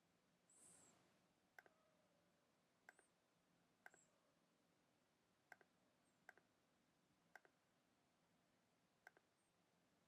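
Faint computer mouse button clicks, about seven spread out, several as quick double clicks, over a low room hiss; a short soft hiss just under a second in.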